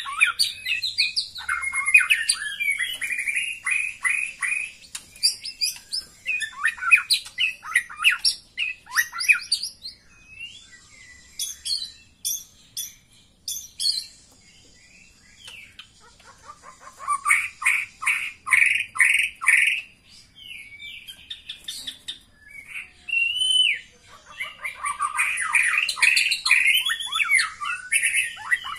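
White-rumped shama calling: bursts of rapid chattering notes a few seconds long, separated by short pauses, with a few higher whistled notes in between.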